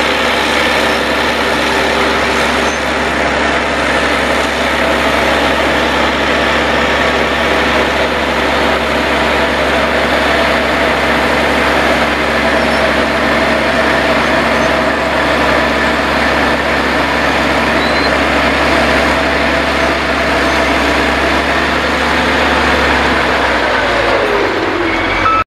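Caterpillar crawler bulldozer's diesel engine running steadily under load as the dozer pushes soil with its blade. The engine note drops just before the end.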